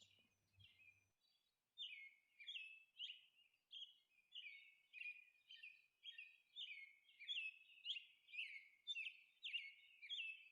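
Faint birds chirping: short high chirps, each falling in pitch, repeating about twice a second from about two seconds in.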